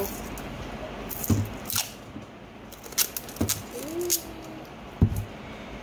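Clear packing tape peeled off its roll by hand, heard as several separate sharp crackles and knocks.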